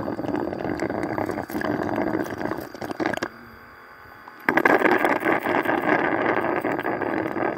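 Honey being sucked out of stingless bee honey pots through a plastic suction tube: a continuous wet gurgling slurp. It drops away for about a second partway through, then comes back louder.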